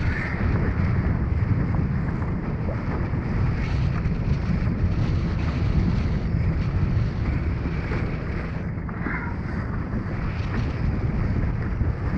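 Wind buffeting the microphone over the steady rush of water along the hull of an RS Aero dinghy sailing fast and heeled.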